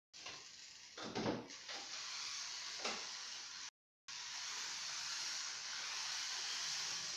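Toy electric train running around its track: a steady, even whirring hiss from its small motor and wheels on the rails, a little louder near the end. There is a thump about a second in, and the sound drops out briefly twice.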